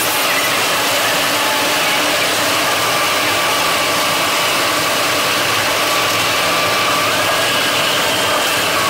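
Steady running noise of an O-Bahn guided bus heard from inside the cabin: engine and tyres on the concrete guideway, with a faint high whine over the rush.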